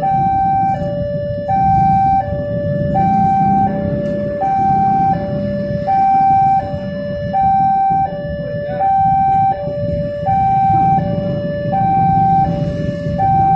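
Railway level-crossing warning alarm sounding: an electronic two-tone signal that alternates evenly between a higher and a lower note, each held about three-quarters of a second. Underneath it, the engines of motorcycles and cars waiting at the crossing make a steady rumble.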